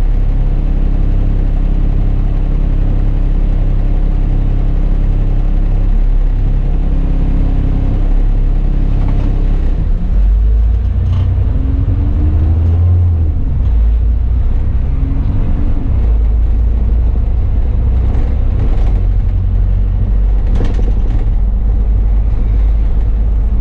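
Bus engine running from inside the cab, steady at first, then louder about ten seconds in, its pitch rising twice as the bus pulls away and gathers speed.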